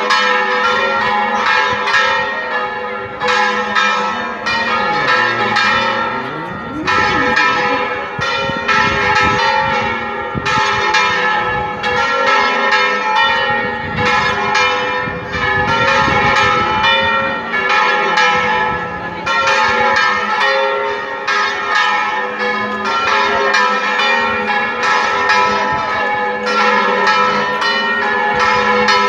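Several church-tower bells swung full circle together in the Spanish volteo style, their strokes coming thick and overlapping into a continuous loud peal.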